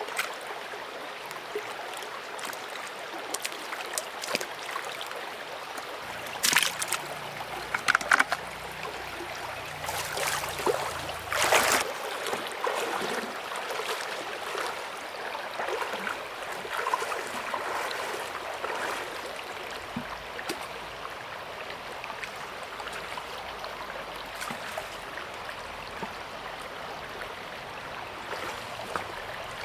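River water flowing steadily, with a few louder splashes about six to twelve seconds in.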